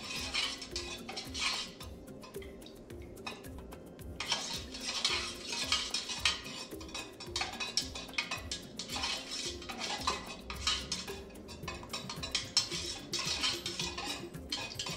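A utensil stirring and scraping around the inside of a metal candle-wax pouring pitcher in quick repeated clinks and scrapes, mixing fragrance oil into melted wax. The stirring pauses for a couple of seconds about two seconds in, then resumes.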